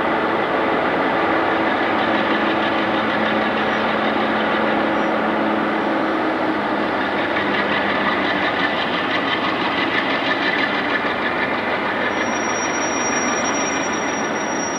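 Diesel locomotive engine running as it pulls a freight train slowly past, with the rumble of the train rolling on the rails. A thin high whine comes in near the end.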